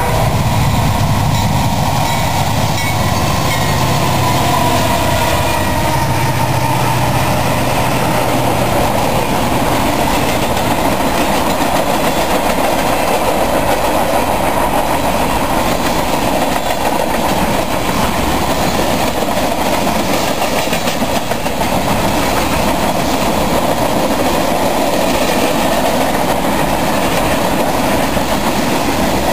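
Freight train passing close by at speed. The lead diesel locomotive's engine hum fades over the first several seconds. Then comes a steady rumble and clatter of covered hoppers and tank cars rolling over the rails.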